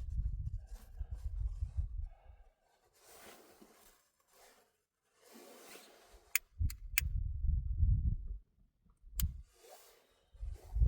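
Two spells of low rumbling noise with some hiss between them, and a few sharp clicks in the middle of the second spell and once shortly after it.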